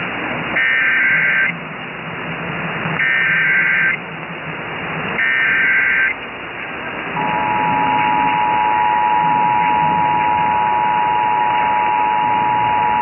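Emergency Alert System SAME header: three one-second bursts of warbling digital data tones about two seconds apart. About seven seconds in the steady two-tone EAS attention signal (853 and 960 Hz) begins and holds. All of it is heard over a radio broadcast with hiss between the bursts.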